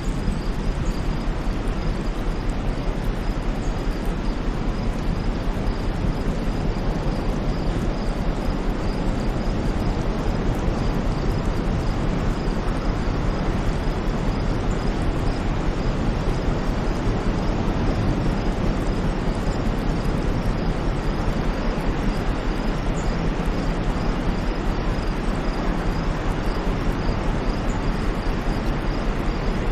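Steady, unchanging white noise, weighted toward a low rumble, with a faint rapid high pulsing running through it.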